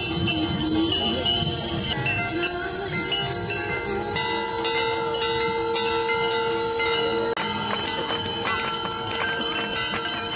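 Bells rung continuously and rapidly for a Hindu aarti, many ringing tones overlapping. A steady held note sounds over them from about four to seven seconds in.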